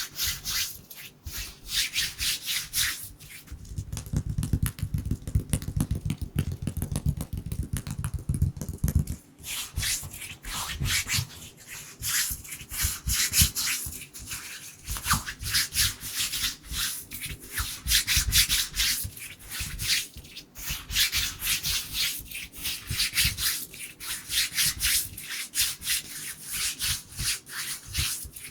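Bare hands rubbing and brushing together close to the microphone: a fast, unbroken stream of dry, rustling strokes. From about 4 to 9 seconds in there is a heavier, lower rumble under the strokes.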